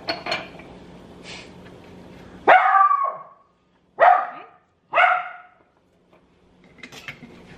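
A dog barks three times, a second or so apart, starting a couple of seconds in. Before the first bark a steady low hum runs, and it stops as the barking starts.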